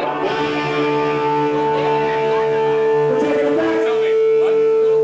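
Electric guitar through an amplifier holding one long steady ringing note or chord, with crowd voices chattering underneath.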